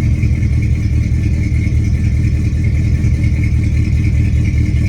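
1994 Ford Ranger's 3.0-litre V6 running at idle with a really bad miss, a loud, uneven low pulsing. The misfire comes from two cylinders getting no fuel through bad fuel injectors.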